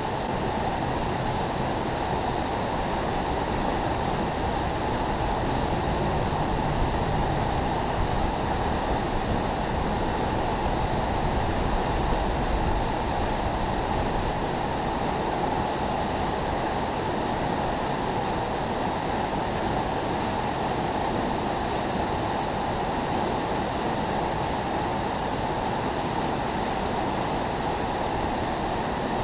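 Steady rush of river water pouring through a spillway.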